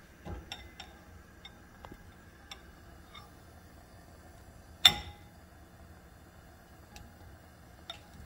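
Nylon-tipped kitchen tongs clicking against a ceramic bowl as bread is dipped in egg mixture. A few light clicks are followed by one sharp clink about five seconds in that leaves the bowl ringing briefly.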